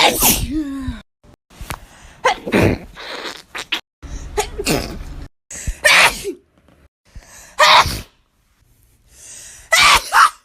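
A person sneezing, about six sneezes in a row, one every one and a half to two seconds, some with a short voiced intake before the burst.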